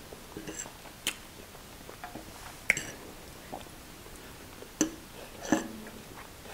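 Close-miked eating of instant noodles: quiet chewing and mouth sounds, broken by about four short, sharp clicks.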